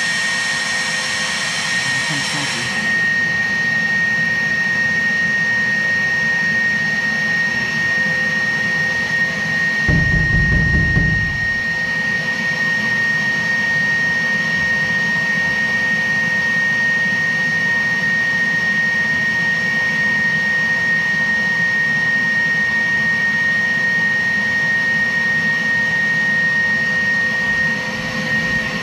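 Wet/dry shop vacuum running at full speed with a steady high whine, sucking on a clogged condensate drain line. About ten seconds in there is a brief low rumble.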